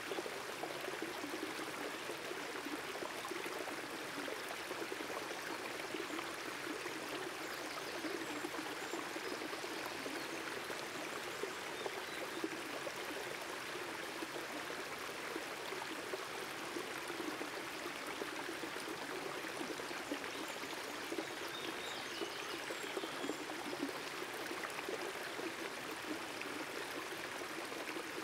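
A shallow creek running and splashing over rock ledges in small cascades, a steady rush of water.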